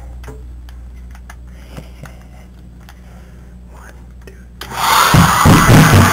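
Handheld hair dryer switched on about four and a half seconds in: it starts suddenly and blows loudly, a dense rush of air with a whine over it and an uneven low rumble. Before that there is only a low electrical hum with a few faint handling clicks.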